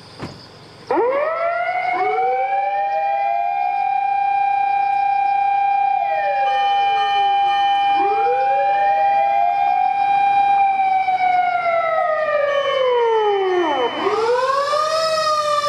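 Outdoor disaster-prevention radio loudspeaker siren sounding its monthly test. It wails up about a second in, holds a steady pitch, and falls away near the end before rising again. Other sirens rise and fall out of step with it, among them a fire engine's siren close by.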